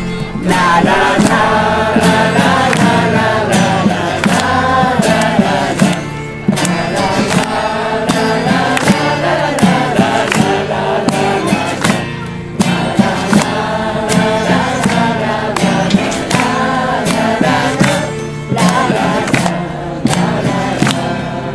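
A crowd singing a song together, with hand claps and a plastic bucket beaten as a drum. The singing breaks briefly between lines about every six seconds.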